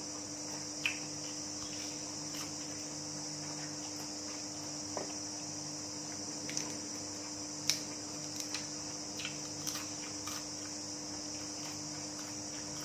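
Steady high-pitched insect chorus, with a low steady hum underneath and a few faint clicks and taps scattered through.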